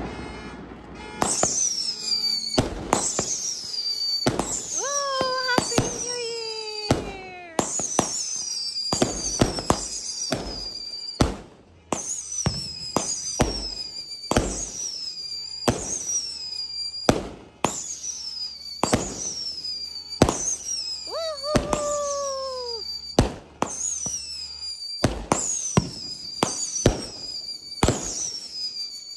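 Aerial fireworks going off in a steady series, roughly one every second and a half: each shot cracks and is followed by a high whistle that falls in pitch. Twice, a lower, longer falling whistle sounds among them.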